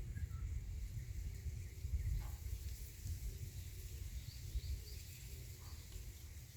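Outdoor ambience: a steady low rumble with a few short, faint bird chirps, a quick run of them about four to five seconds in.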